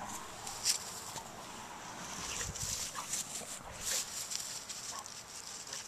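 Footsteps crunching and rustling through dry grass and fallen leaves, with a couple of faint short whimpers from a puppy.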